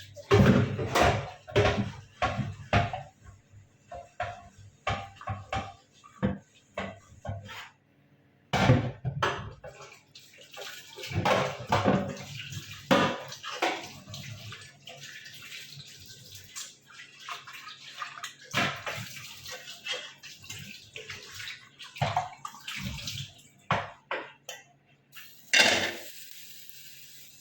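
Boiled pork pieces being rinsed by hand in water: irregular splashing and sloshing, with frequent knocks of the meat and the container.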